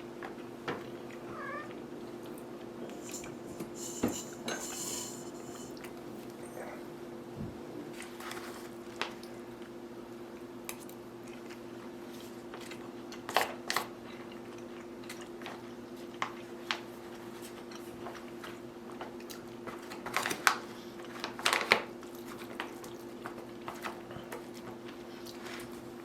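Spoon clicking and scraping in a food pouch while eating, in scattered short taps with a few louder clusters, over a steady low hum.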